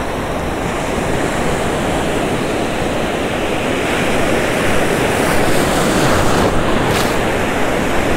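Ocean surf washing and breaking in the shallows, a steady rush that slowly grows louder over the first few seconds, with wind buffeting the microphone. A brief sharp click sounds about seven seconds in.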